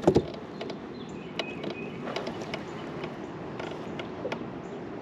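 Steady rushing wind-and-water noise around the kayaks, with a knock at the very start and a few faint light clicks and taps as a crappie is handled in a landing net.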